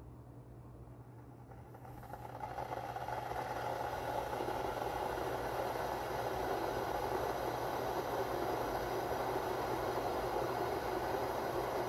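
Electric kettle heating water: a rushing, rumbling noise swells up about two seconds in and then holds steady.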